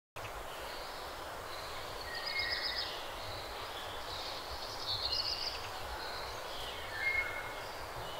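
Outdoor countryside ambience: a steady hiss with a low rumble, and small birds chirping in short trills and whistles three times, about two and a half, five and seven seconds in.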